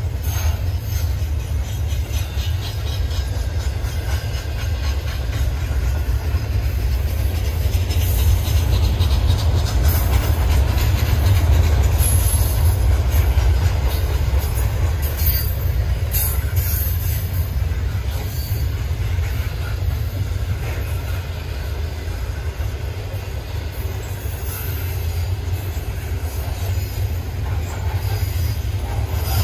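Freight train cars rolling past with a steady low rumble, and brief high squeals from the wheels now and then.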